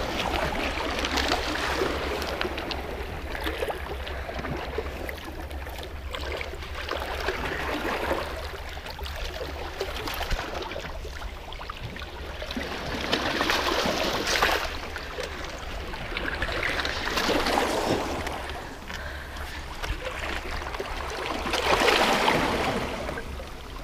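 Small waves washing and splashing against a rocky shoreline, swelling up every few seconds.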